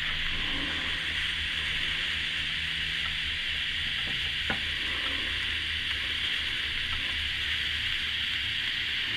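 Electric arc welding: the arc running steadily with an even hiss, and one sharp click about four and a half seconds in.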